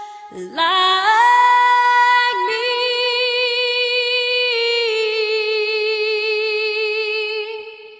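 A woman singing slowly, holding long notes with vibrato. The voice slides up into a held note about a second in and fades out near the end.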